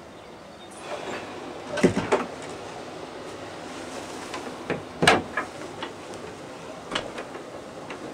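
A few scattered wooden knocks and bumps of a door or cupboard being handled, the loudest about five seconds in.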